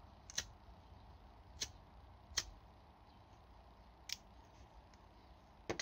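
Five sharp little clicks, spread unevenly over a few seconds, from the metal parts of a Dunhill sports lighter's insert being fitted and worked by hand.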